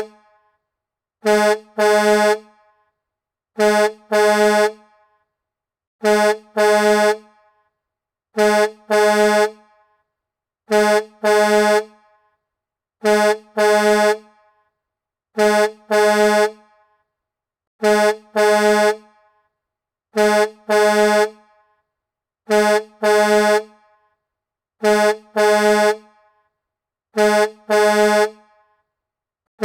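Semi-truck air horn sounding in double blasts, a short blast followed by a slightly longer one. The pairs repeat evenly about every two and a half seconds, with silence between them.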